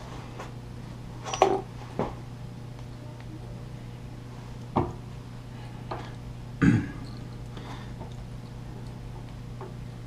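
Metal hand tools being handled at a milling machine while a tap and T-handle tap wrench are set up in the chuck for hand tapping: a handful of scattered clicks and knocks, the loudest about two-thirds of the way in, over a low steady hum.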